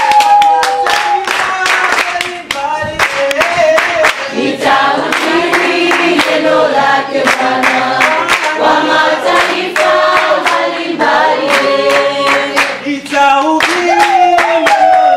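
A congregation singing a worship song together, with steady hand clapping in time.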